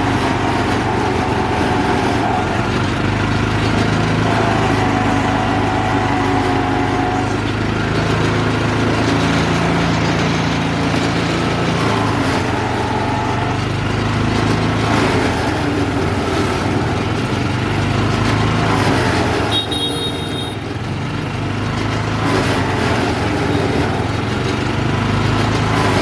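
A small engine running steadily at a low pitch throughout, with market background and faint voices early on.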